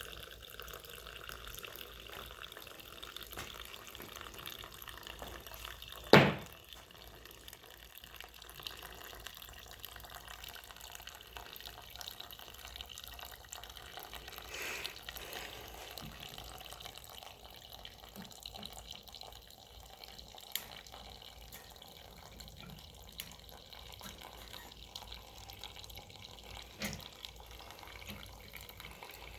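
Old gasoline running and dripping from a disconnected fuel line into a cup as a Honda trash pump's tank drains. A sharp knock about six seconds in, and a few fainter clicks later on.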